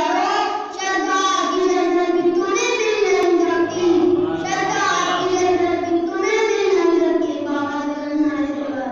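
A boy singing a devotional recitation solo and unaccompanied into a microphone, in long held notes that waver and slide in pitch, with short breaths between phrases.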